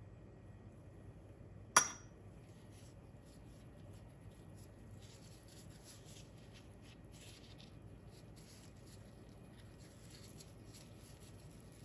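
A metal spoon clinks once against a glass bowl, sharp and short with a brief ring, about two seconds in. Later come soft, scattered rustles of plastic-gloved hands folding a thin pancake.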